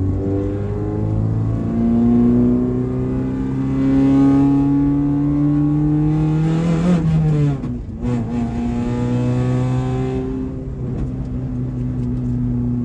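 1994 Honda Civic's four-cylinder engine pulling under load with the manual gearbox, revs climbing steadily, dropping sharply at a gear change about seven and a half seconds in, then climbing again more gently and levelling off.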